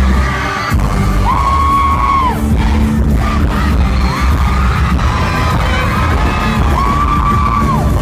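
Loud amplified pop music at a concert, over a heavy bass beat. A singing voice rises into a held high note and drops away at the end of it, three times.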